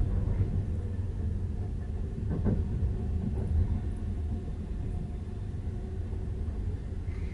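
Steady low rumble of a passenger train carriage rolling along the rails, heard from inside the carriage, with a brief faint knock about two and a half seconds in.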